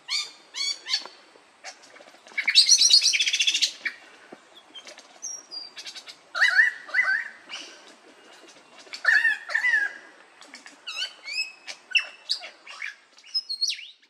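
Male superb lyrebird singing during its display: a varied run of sharp whistles and down-slurred calls, with a loud, fast rattling burst about two and a half seconds in.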